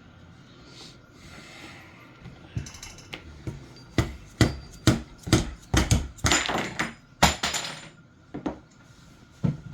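A quick run of sharp taps with some scraping, then a couple more knocks near the end, as a stuck front sight and barrel band is worked off a Marlin Model 60 .22 rifle barrel with tools.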